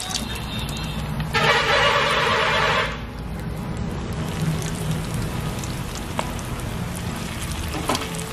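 Mutton-fat and rice-flour pakoras frying in oil in an aluminium karai over a low flame, a steady sizzling hiss. About a second and a half in, a loud harsh tone cuts across it for about a second and a half, then stops abruptly.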